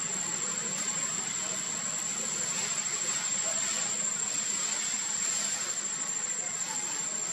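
Steady outdoor background hiss with a constant high-pitched whine; no monkey calls stand out.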